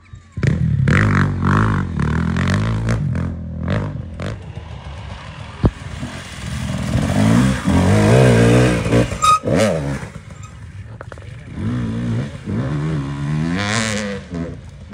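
Off-road dirt bike engines revving up and down several times as the bikes ride past, loudest about halfway through, with a sharp click about five and a half seconds in.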